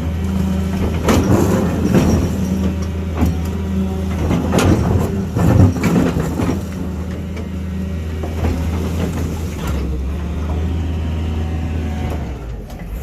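Doosan excavator's diesel engine running under load, with repeated knocks and scrapes of digging in the first half; later the engine runs more evenly with only occasional knocks.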